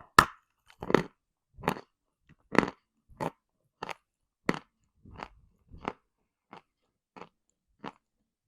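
A sharp bite into a dry lump of edible earth, the kind of chalk or clay eaten for its crunch, followed by a steady run of chewing crunches about one and a half a second, growing softer toward the end.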